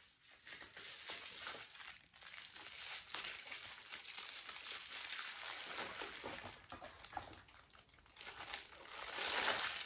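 Bubble wrap and plastic packaging crinkling and crackling as a camera lens is unwrapped by hand, in irregular bursts that grow loudest near the end.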